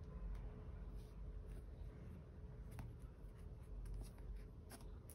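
Faint handling of small plastic slime tubs: scratchy rubbing and a few light plastic clicks and taps as the tubs are picked up and moved about.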